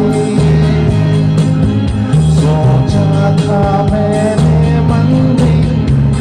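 A man singing into a handheld microphone over live band music with guitar, amplified through a PA, with a bass line stepping from note to note underneath.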